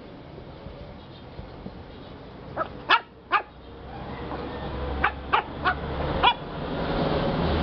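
Lhasa Apso puppy giving short, high yips: three around three seconds in, then four more between five and six and a half seconds.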